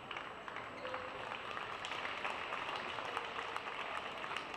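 Arena crowd applauding, many hands clapping at once, as a badminton point is won.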